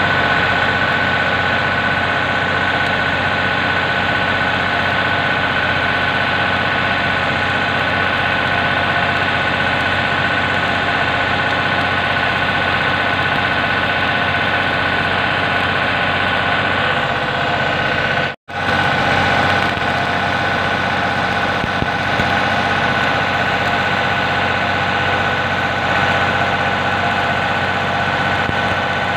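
Stick (arc) welding with a rod electrode, laying weld beads on a steel plate: the arc runs continuously over a steady machine hum. It cuts out completely for a moment about 18 seconds in, then runs on.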